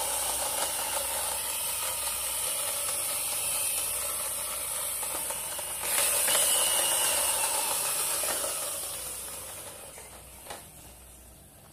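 Plastic toy double-decker bus with its wheels and geared motor spinning and whirring. The whir picks up again about six seconds in, then slowly falls in pitch and fades as the wheels wind down.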